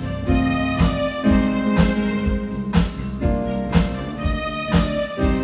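Instrumental passage of a pop ballad with no vocals: sustained keyboard chords over a steady drum beat.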